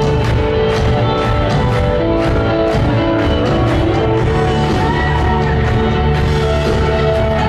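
Rock band playing live in a large hall, with a steady drum beat under sustained guitar and bass notes.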